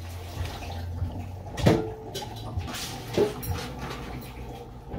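A few knocks and clanks from the roaster pan, each with a short metallic ring, as a whole seasoned turkey is pushed and settled into it. Brief water splashing from hands being rinsed in a tub of liquid, over a low steady hum.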